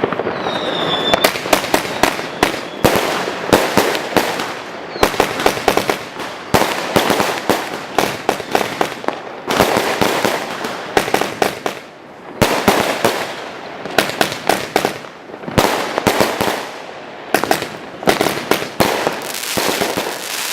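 Nico 'Dragon Blood' firework battery (cake) firing shot after shot in quick succession, with launch thumps and sharp bursts. A brief rising whistle comes about a second in, and there is a short lull around the middle.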